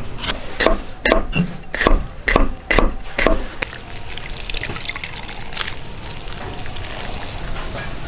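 A metal spoon scraping the seeds and pith out of a halved bitter melon on a wooden board: a quick run of sharp, uneven scrapes for about three and a half seconds. Then hands swish chopped greens in a basin of water, a steady splashing and trickling.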